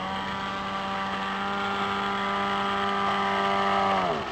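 Electric motor and propeller of a small foam RC airplane running at steady throttle with a buzzing hum. Near the end the throttle is cut and the pitch drops steeply as the prop spins down.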